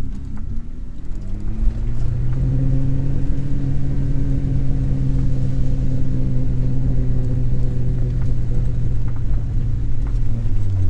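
Toyota LandCruiser 80 Series 4WD engine running at steady revs on a steep downhill track; its pitch dips and climbs back in the first two seconds, holds steady, then drops near the end.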